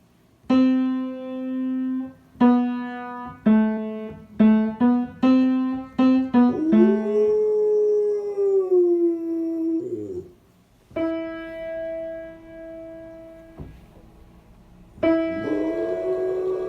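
A piano plays single notes one after another, and a pet dog joins in with one long howl that rises and then falls in pitch. After one more held piano note, the dog starts howling again near the end.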